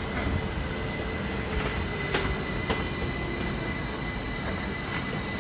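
A train moving along the rails at a station with a steady high-pitched wheel squeal over a low rumble, and a few sharp clicks.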